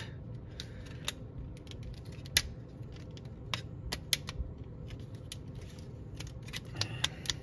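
Plastic clicks and snaps of a Transformers Starscream action figure's wings and parts being folded and locked into jet mode: a scattering of short, sharp clicks, the loudest about two and a half seconds in, with small clusters around four seconds in and near the end.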